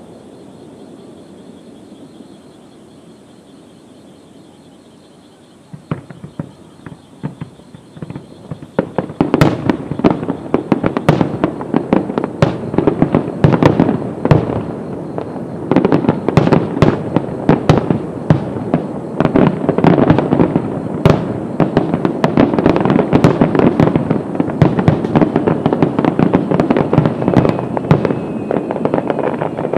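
Fireworks display: a quieter steady hiss at first, then sharp bangs start about six seconds in and build from about nine seconds into a dense rapid-fire barrage of overlapping shell bursts that keeps going.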